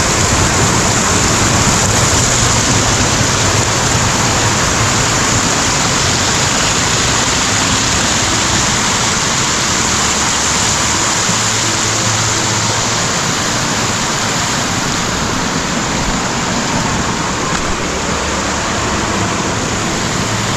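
Water of a small waterfall rushing over rocks: a loud, steady rushing hiss that holds even throughout.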